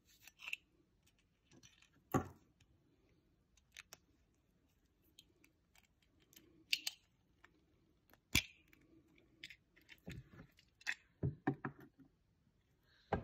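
Small handling noises: scattered light clicks and taps as a small wooden case with tiny metal parts inside and a plastic vial are handled, with a few sharper knocks, the loudest about two and eight seconds in, and a run of taps near the end as the case is closed and set down on wood.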